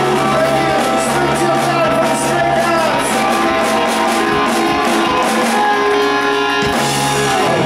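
Live rock and roll band playing: electric guitars and drums with regular cymbal hits, and a singing voice.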